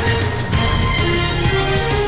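Breaking-news theme music: a TV news sting with held notes over a steady beat.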